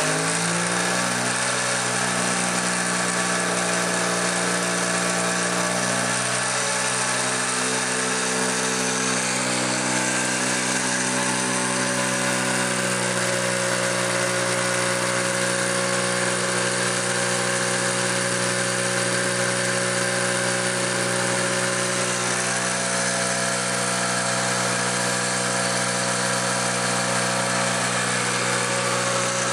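Small electric drive motor spinning a car alternator on a bench rig, running at a steady speed with an even hum and whine. The alternator's excite wire is disconnected, so it is not charging the battery.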